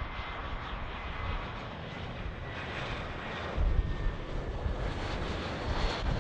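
Airliner engines running, a steady broad roar with a faint high whine over it, heard across the airfield. A louder low rumble buffets in about halfway through.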